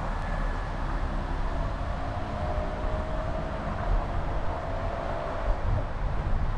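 Steady road and tyre noise with a low rumble from a Honda CR-V driving on a city street. A faint whine comes in about a second and a half in, rising slightly, and fades out near the end.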